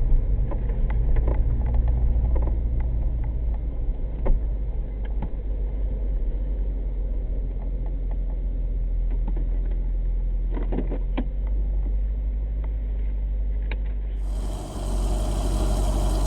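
1998 C5 Corvette running, a steady low engine and road rumble with scattered light clicks and rattles. About fourteen seconds in, the sound cuts abruptly to a brighter recording of the car still running.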